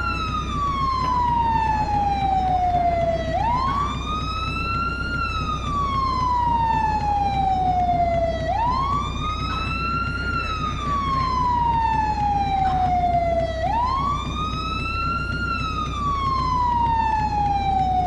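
American fire truck siren in wail mode: the pitch rises quickly, then falls slowly over about four seconds, repeating about every five seconds over a steady low rumble.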